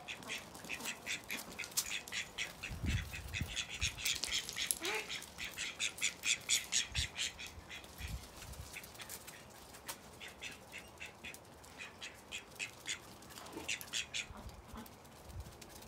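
A duck quacking in quick runs of short calls, busiest in the first half, with a few low thumps in between.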